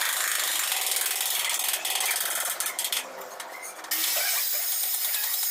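Power tool running loud in two bursts, stopping about three seconds in and starting again about a second later, while working stone or tile.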